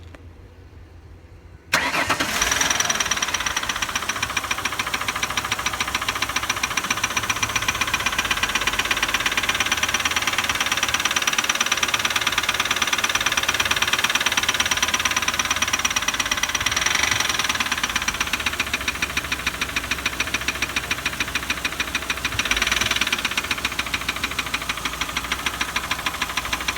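Ford 4.2 L OHV V6 running with a rapid, even ticking and clicking, over a steady high whine. It comes in suddenly about two seconds in and swells briefly twice, near the middle and towards the end. The cause is unknown; the owner's guesses are sticking lifters, a bent pushrod, a loose spark plug or a loose timing chain.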